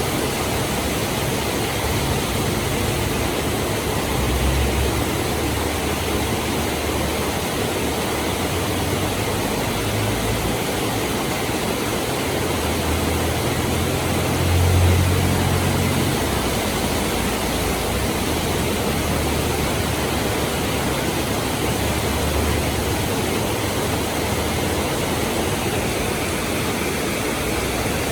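Heavy rain falling in a steady, dense hiss, with several low rumbles underneath that swell and fade, the loudest about halfway through.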